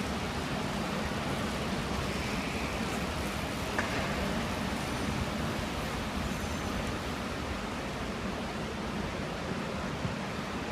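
Steady hall noise inside an indoor velodrome during a track bike race, with one sharp click about four seconds in.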